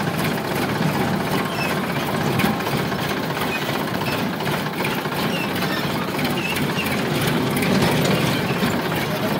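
Sonalika tractor's diesel engine running steadily as the tractor drives, with a fast, even clatter.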